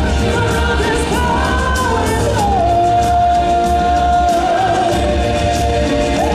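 Stage-show song: a singer over music with a steady low drum beat. About two and a half seconds in, the singer holds one long note for about two seconds.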